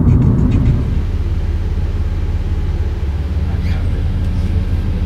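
Steady low rumble of a car's engine and tyres heard from inside the cabin while driving, a little louder in the first second.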